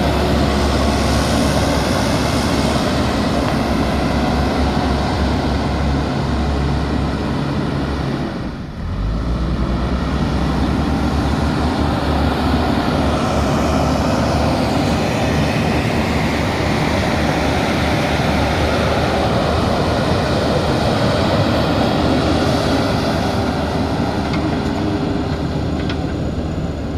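Heavy diesel construction machinery running steadily, a loud continuous engine rumble with the grind of working machinery over it, broken by a brief dip about nine seconds in.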